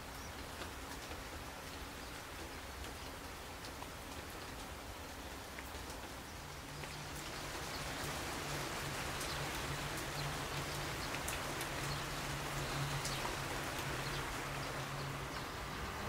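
Steady rain with scattered drop ticks. A low steady hum joins about six seconds in and stops near the end.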